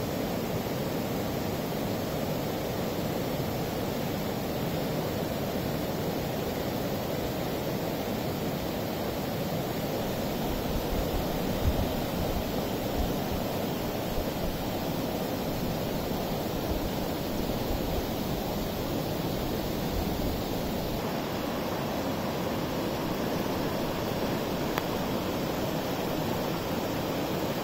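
River in flood: fast, muddy floodwater rushing steadily past and over a road, a continuous even rush of water.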